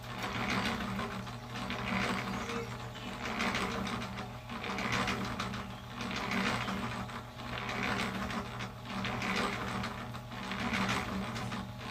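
Small electric cement mixer running with wet concrete in its drum: a steady motor and gear hum under a swishing of the tumbling mix that swells and fades about once a second as the drum turns.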